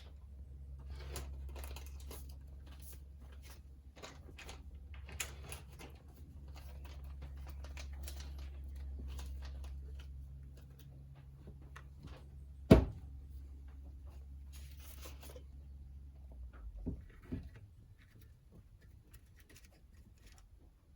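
Rustling and small clicks of parts being handled at a workbench, with one sharp knock about two-thirds in and two lighter knocks a little later, over a steady low hum that cuts out near the end.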